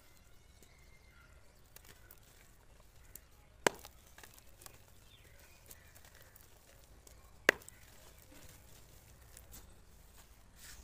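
Dry chunks of dirt crumbling in the hands over water, with faint scattered crackles and two sharp cracks, about four seconds apart, as pieces snap.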